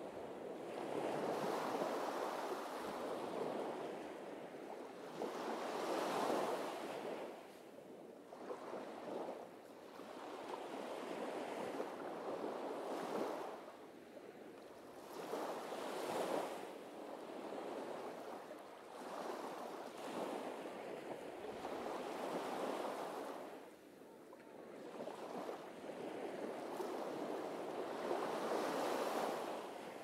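Small waves breaking and washing up a sandy beach, the surf swelling and fading every few seconds.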